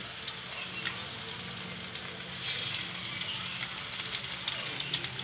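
Oil sizzling in a wok as bitter gourd slices stuffed with a sardine-and-egg mixture fry, a steady hiss with sharp crackling pops scattered through it, a little livelier from about halfway in.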